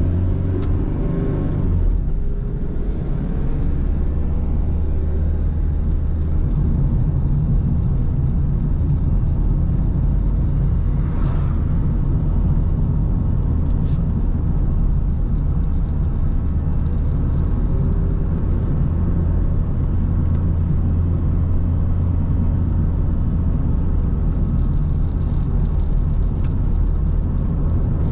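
A car driving: steady engine and tyre rumble, without a break.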